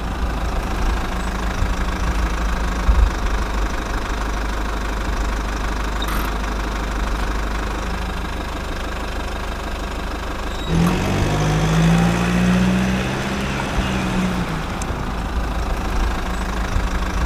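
Engine running steadily with a low rumble. Past the middle, a louder pitched tone rises, holds for a few seconds and falls away, like the engine revving.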